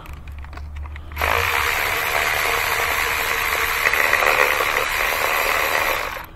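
Cordless electric ratchet running steadily for about five seconds, starting about a second in and cutting off sharply, as it backs a spark plug out of the cylinder head.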